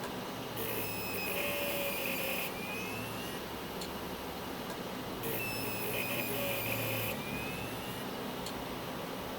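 Failing Maxtor STM3802110A hard drive making a repeating scratchy, buzzing noise. Bursts of about two seconds come roughly every five seconds, twice here, each with a faint gliding whine. The noise is a sign of a defective drive that may be at the end of its life.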